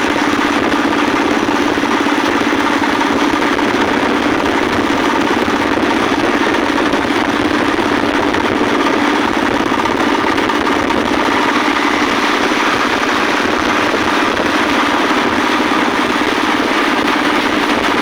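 Single-cylinder diesel engine of a công nông farm truck running steadily while the vehicle drives along, heard from just behind the open engine.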